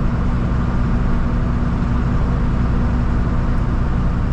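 Vehicle engine and road noise while driving at a steady pace: a steady low drone with no changes.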